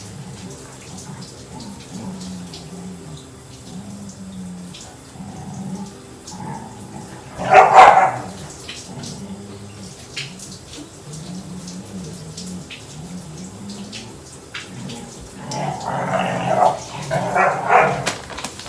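A dog barking: one loud bark about eight seconds in, then a run of barks near the end.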